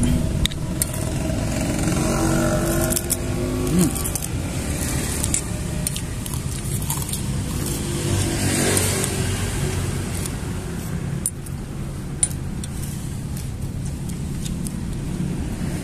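Road traffic: a vehicle engine running steadily, with a swell of passing-traffic noise about eight seconds in. A metal spoon clinks against a ceramic plate now and then.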